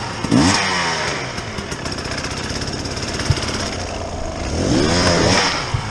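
Dirt bike engine running at idle, revved twice: briefly about half a second in, and again near the end with the pitch rising and then falling. There is a single click a little past the middle.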